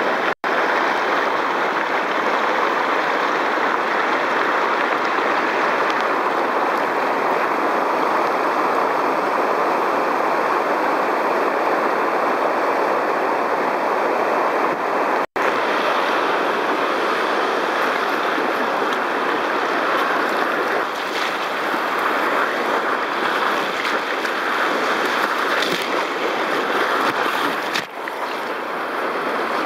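Whitewater rapids rushing steadily around a kayak running a shallow, rocky mountain river, cut off for an instant twice.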